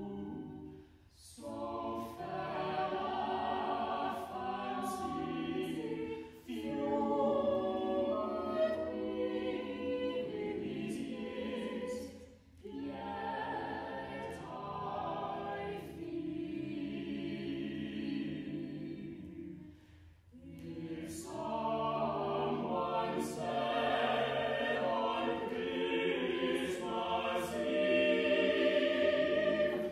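A six-voice a cappella vocal ensemble (two sopranos, alto, tenor, two basses) singing a classical choral Christmas carol, in five phrases with brief breaks between them.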